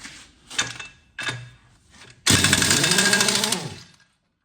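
Pneumatic impact wrench: two short blips, then a loud burst of rapid hammering about two seconds in that lasts about a second and a half, its pitch rising and then falling away. It runs on an air hose that the owner finds a size too small.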